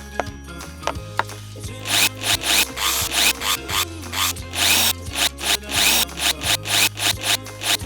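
Toy drill whirring in many short stop-start spurts, each with a rising whine, from about two seconds in, as it drives a toy bolt; a few light clicks come before it.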